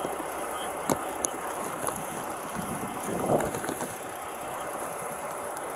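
Steady outdoor street background noise with faint traffic, a few light clicks and a slightly louder muffled rustle about three seconds in.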